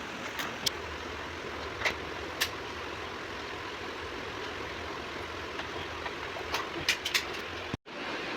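Split AC indoor blower running with a steady rush of air and a low hum, with a few sharp clicks and taps: twice early on and a cluster of four near the end. The sound cuts out for a moment just before the end.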